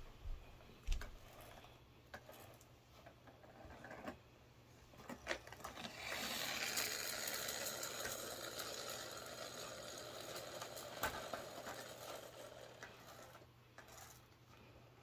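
Pull-back spring motor of a soft toy car whirring steadily for several seconds from about six seconds in, its gears spinning as the car is wound and run. Before that, scattered knocks and a thump about a second in as the toys are handled.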